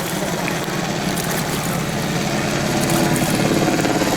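Helicopter flying by: a steady drone of engine and rotor with a fast even pulse, growing slowly louder.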